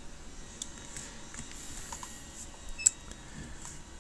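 Faint scattered clicks and taps of a stylus writing on a tablet, with one sharper click nearly three seconds in, over low room noise.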